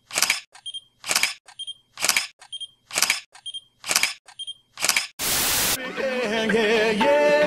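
Camera shutter sound effect, clicking six times at just under a second apart, each click followed by a softer second click. About five seconds in comes a brief burst of hiss-like noise, and music starts after it near the end.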